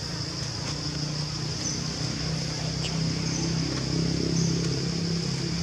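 Low, steady engine hum from a motor vehicle, a little louder about four seconds in, under a constant high-pitched insect drone.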